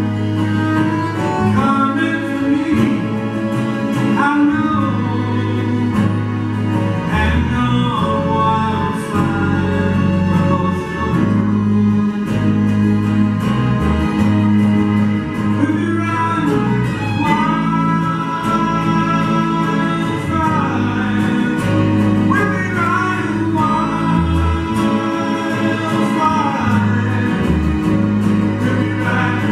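Live acoustic ballad: steady acoustic guitar with a small string section of violins and cello, and a male voice singing long held melody lines over them.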